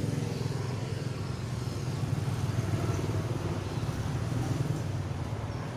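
Road traffic: a motor vehicle's engine running with a steady low hum that slowly fades, over general street noise.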